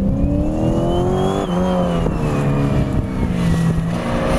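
Camaro's engine under hard acceleration on an autocross course: the revs climb for about a second and a half and drop sharply at an upshift. They then rise again and fall back as the driver lifts and gets back on the throttle between the cones.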